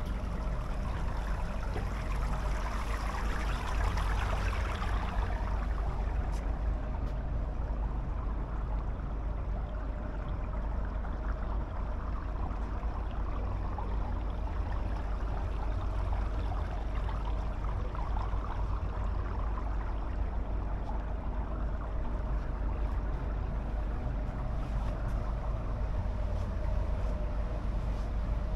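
Steady background noise on a ship's open deck: a low rumble with a constant hum and a hiss that swells for a few seconds near the start.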